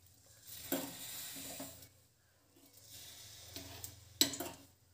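A small pool of cooking oil sizzling as it heats in a metal kadai, in two stretches separated by a short pause, with a sharp click about four seconds in.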